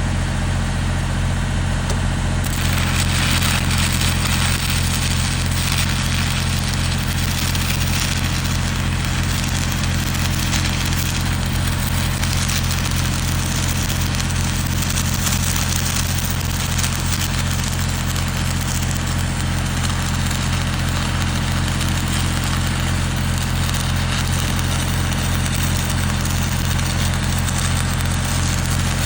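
Stick (SMAW) welding arc crackling and sizzling steadily, starting about two seconds in, over a steady low machine hum.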